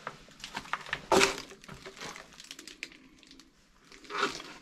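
Footsteps crunching over grit and litter on a tunnel floor, with irregular crackles and one loud crunch about a second in.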